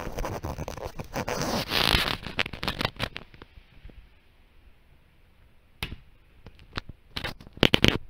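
Scraping and rustling of a ceiling board and the camera rubbing against the ceiling opening as it is pushed up into the ceiling void, dying away after about three and a half seconds; then a few separate knocks and taps, the loudest near the end.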